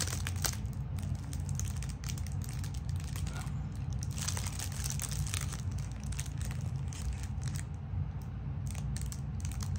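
Packaging being handled and crinkled while a small parcel of tubes is opened: irregular crackling and rustling throughout.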